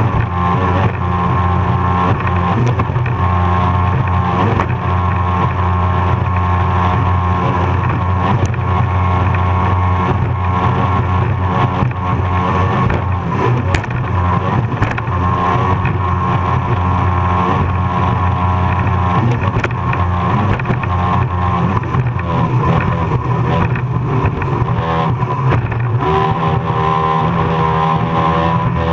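Racing powerboat's engine running hard at high revs, its pitch wavering up and down as the boat crosses the chop, under a steady rush of wind and water.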